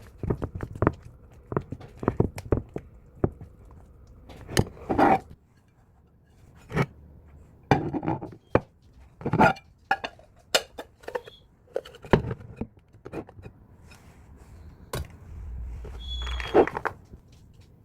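Kitchenware clinking and scraping: a series of sharp clinks and knocks of utensils and dishes, with a few longer scrapes.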